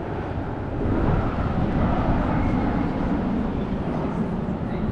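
Airplane engine noise from an aircraft flying past, a loud steady rumble that swells about a second in.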